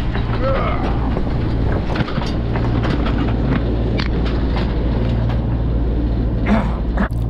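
Sailing yacht's inboard engine running with a steady low drone, with scattered knocks and rattles over it.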